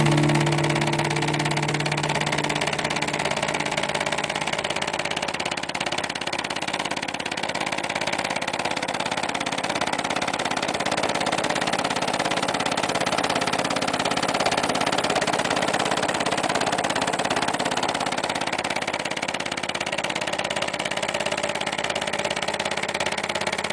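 Homemade vibrating sand sieve running steadily, its motor-driven screen shaking with a fast, even rattle.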